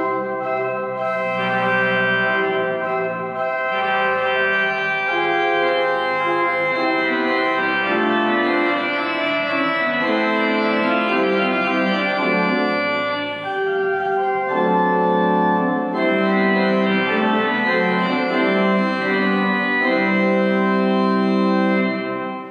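Church pipe organ playing slow, sustained chords, fading out near the end.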